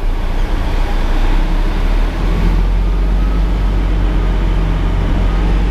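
Western Star B-double truck's diesel engine running with a steady low drone, heard from inside the cab as the truck pulls away slowly.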